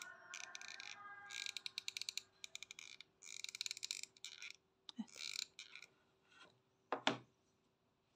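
Several runs of rapid small ratchet-like clicks from hands handling beads and the glue gun at a craft table, with one sharp knock about seven seconds in.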